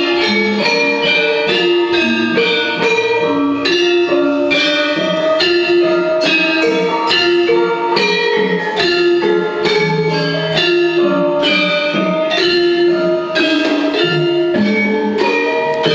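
Javanese gamelan ensemble playing: bronze metallophones and bonang kettle gongs strike a steady pulse of ringing notes, with hand-played kendang drum strokes underneath.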